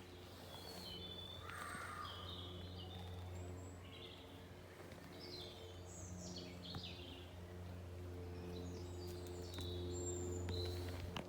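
Birds calling and chirping, several short calls scattered through, over a steady low mechanical hum with a few stacked tones: the loud background noise the walk was warned of.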